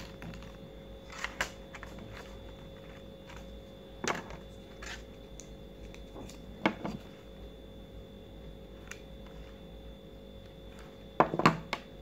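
Green paper petals of a large paper flower rustling and crinkling as they are handled and pressed into place: a few short scattered rustles, the loudest pair near the end.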